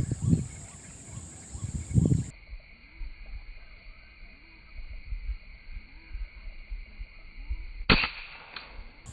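A single sharp air-rifle shot about eight seconds in, followed about half a second later by a fainter click. Low thumps in the first two seconds.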